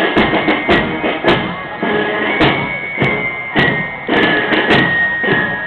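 Marching drum-and-flute band playing on the march: sharp snare drum strikes under a high, held melody line.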